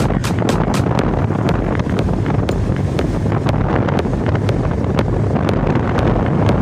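Wind buffeting the microphone: a loud, steady low rumble, with irregular sharp ticks every few tenths of a second.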